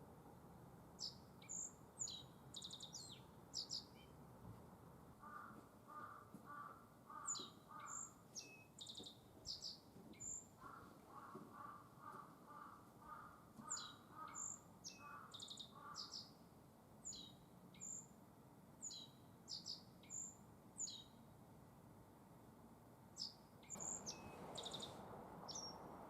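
A black-faced bunting singing: five short, high, chirping song phrases a few seconds apart. Another bird's lower, evenly repeated calls run beneath it twice in the first half.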